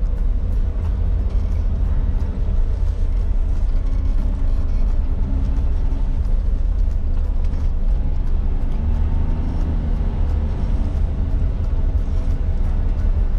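Interior sound of a 1996 Suzuki Jimny JA22 on the move: its 660 cc turbocharged three-cylinder engine and the road noise make a steady, deep rumble through the cabin.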